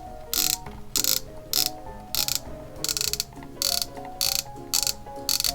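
Ratcheting clicks from the hand-turned winch of a Bachmann HO scale Cranky the Crane model, as the boom or hook is wound. There are about nine short rasps, roughly every half second, over background music.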